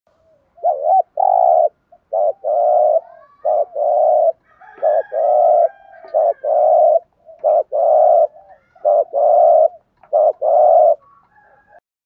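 Spotted dove cooing in the 'thúc gù' style: about eight two-part coos, a short note then a longer one, repeated roughly every second and a half. It is the decoy dove's call used to provoke wild doves.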